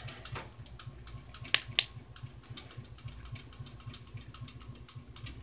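Handling noise: faint irregular clicks and rubbing as a plush pillow and the phone are handled close to the microphone, with two sharp clicks close together about a second and a half in, over a low hum.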